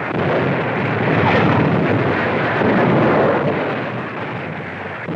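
Newsreel battle sound-effects track on an old optical film soundtrack: a continuous rough rumble that swells about a second in and eases after about three and a half seconds.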